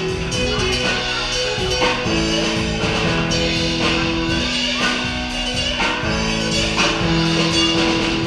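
Live band playing: acoustic guitar strumming over held keyboard chords, with a drum kit keeping a steady beat.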